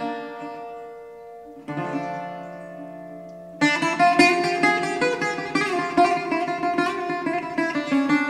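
Background music played on plucked strings: two ringing chords that die away in the first half, then a fast run of plucked notes from about three and a half seconds in.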